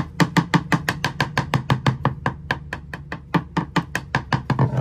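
Screwdriver handle tapping rapidly on a fiberglass boat floor over a wood core, about eight sharp taps a second. The floor sounds hollow over the voids, so the tapping locates the bulkheads beneath it.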